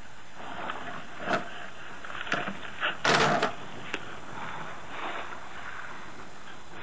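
An elephant's trunk bumping and handling camera gear on the ground: a few sharp knocks and a short rough scrape halfway through, over a steady hiss.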